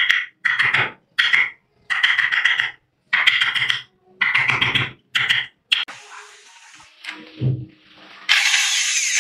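Wooden mallet driving a wood-carving chisel into a block of wood, a run of about seven blows in the first six seconds. A little after eight seconds in, an electric drill starts boring into the wood and runs steadily.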